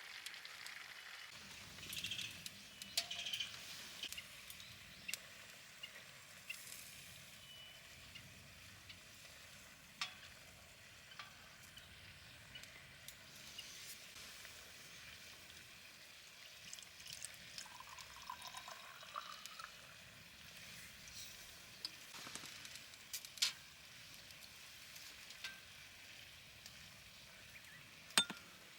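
Faint sizzling of food cooking, with scattered light clicks and clinks.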